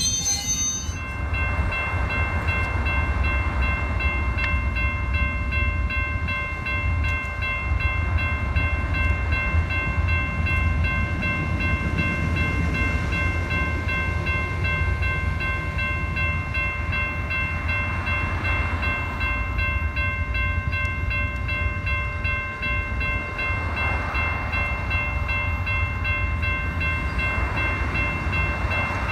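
Amtrak Superliner bilevel passenger cars rolling past close by: a steady low rumble of wheels on rail with a steady high whine over it.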